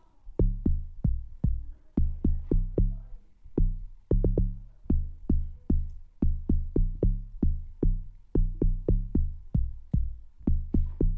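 Amapiano log drum, a synth bass, playing a syncopated riff on its own: a quick run of short, low pitched notes, each starting with a click and dying away fast.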